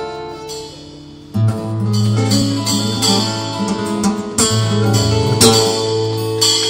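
Live acoustic-guitar band with a cajón, strumming chords. The playing thins to one fading held note about half a second in. A strong chord brings the full band back about a second and a half in, with a sharp accent here and there.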